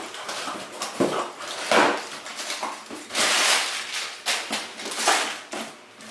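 Cardboard box flaps being pulled open, then brown packing paper rustling and crinkling as it is pulled out of the box. The sound comes as a string of short scraping and rustling bursts, loudest about three seconds in.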